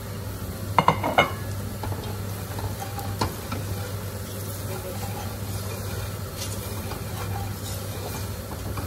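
Nylon spatula stirring and scraping a spice-and-onion masala frying in oil in a nonstick pot, with a light sizzle. The spatula knocks against the pot a few times about a second in, and once more around three seconds, over a steady low hum.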